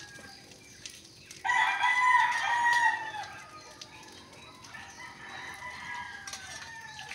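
Rooster crowing: one loud crow starting about a second and a half in and lasting over a second, followed by a fainter second crow near the end.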